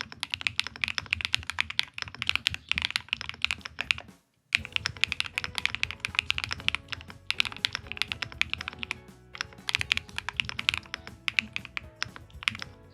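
Fast typing on an Epomaker Split 70 mechanical split keyboard: a dense, continuous run of key clicks over background music. The sound cuts out briefly about four seconds in, then the typing resumes.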